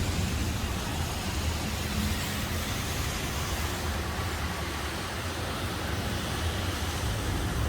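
Storm noise: a steady hiss of heavy rain and strong wind, with a low, uneven rumble underneath.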